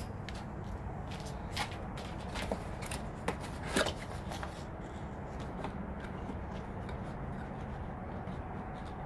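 A cardboard box being opened and handled: a few sharp clicks and knocks from the flaps and lid in the first four seconds, then softer rubbing and rustling of cardboard as the plastic turntable inside is worked out, over a steady low background rumble.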